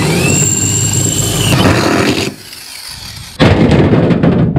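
Power drill running at speed and drilling through the galvanized steel bottom of a planting trough to enlarge its drainage holes: the motor whines up in pitch with a high squeal and holds steady, then stops about two seconds in. A second, rougher noise starts near the end.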